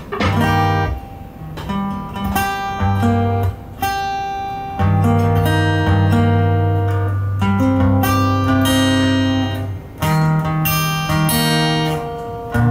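Solo acoustic guitar playing a slow strummed chord progression. Each chord is struck and left ringing, with a new chord every second or two.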